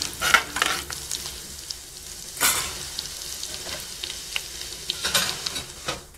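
A tadka of dried red chillies, chopped garlic, sliced ginger and cumin seeds sizzling in hot oil in a steel pan. A spatula stirs and scrapes through it in spurts, loudest about two and a half seconds in.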